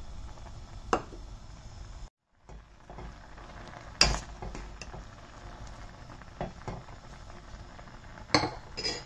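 A metal ladle knocking against a stainless steel cooking pot a few times, the loudest knock about four seconds in, over the steady bubbling of vegetables and oats at a rolling boil.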